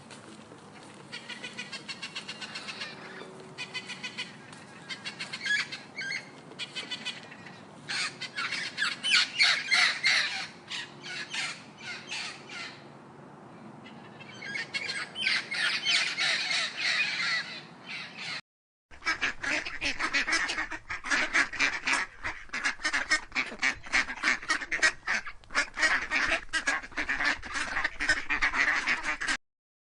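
Birds calling in rapid, repeated bursts. The calls break off for a moment about two-thirds of the way through, and a different flock takes over with denser, lower calls.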